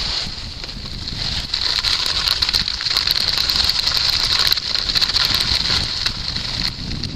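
Skis sliding over packed piste snow in a steady hiss, louder from about a second and a half in, with wind rumbling on the microphone.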